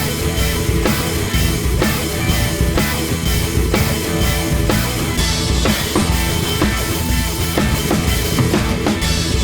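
Rock music with a steady drum-kit beat, bass drum and rimshots.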